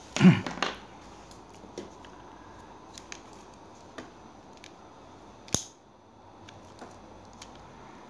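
Small handling noises on a tabletop over quiet room tone: a brief clatter of knocks near the start, a few faint ticks, and one sharp click about five and a half seconds in.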